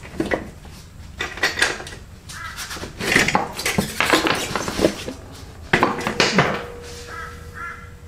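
Metal parts clinking, knocking and scraping as the rear axle is worked out of a motorcycle's rear wheel and swingarm and the wheel spacers come loose, with two short squeaky sounds near the end.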